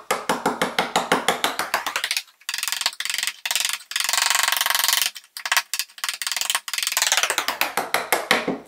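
Steel bench chisel paring end grain of hard bamboo flooring against a 45-degree guide block: a rapid, ratchet-like chattering click of about ten a second as the edge bites through the tough fibres, with a denser scraping stretch in the middle. Bamboo is a very difficult material to cut.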